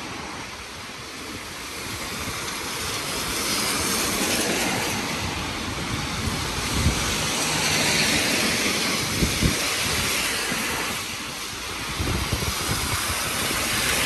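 A vehicle passing in the rain: a rushing hiss that swells to a peak about halfway through and then eases, with a few short low thumps.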